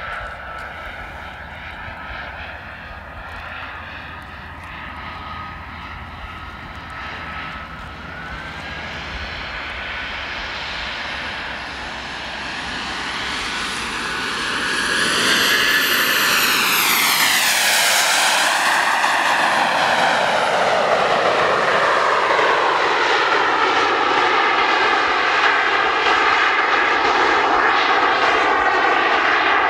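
Four JetsMunt M166 model turbine jet engines of a giant RC Airbus A380 running in flight: a high-pitched whine over a rushing jet noise. The sound grows louder as the model comes toward and past, its tone sweeping about halfway through, and then stays loud.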